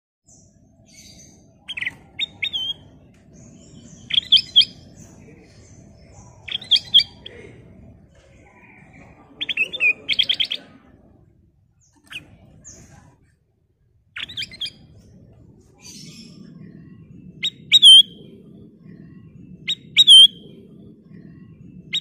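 Caged ruby-throated bulbul (kutilang emas) singing short, clear phrases of a few quick whistled notes every couple of seconds, the loudest near the end, with a faint low rumble behind.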